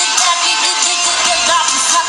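Loud pop song with a girl's lead vocal sung live into a handheld microphone over a backing track.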